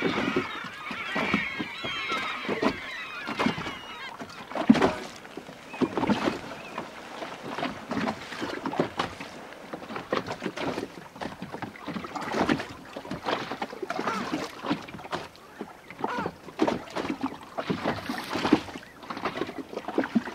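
A flock of seabirds calling, a dense chatter in the first few seconds and scattered calls after, over water slapping and splashing against a small boat's hull, with one sharp slap about five seconds in.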